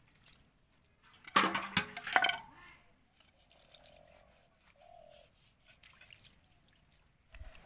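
Water poured from a small steel bowl, splashing and trickling into a plastic basket as chicken pieces are rinsed. About a second and a half in, steel vessels knock together loudly and ring briefly.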